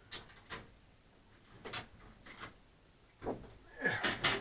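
Handling tools and hardware: a handful of short, irregular knocks and clicks, busier near the end.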